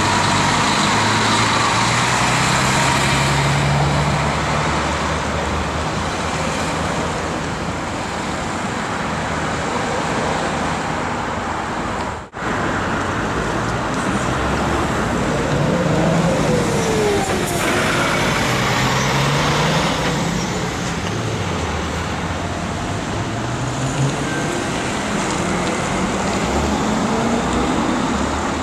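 A motorcade of cars driving past one after another, with steady engine hum and tyre noise on a wet road, and the pitch of passing vehicles sliding as they go by. The sound drops out briefly about twelve seconds in.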